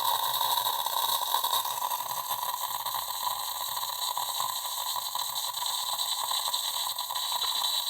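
Bosch Tassimo pod coffee machine near the end of its brew cycle, with a steady, watery hiss and gurgle of hot water and steam forced through the pod into the cup.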